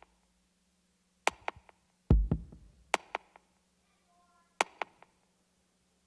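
Sparse electronic percussion closing out a dance track: a handful of sharp, echoing clicks and hits, one with a low thump about two seconds in, and a short run of soft synth notes about four seconds in.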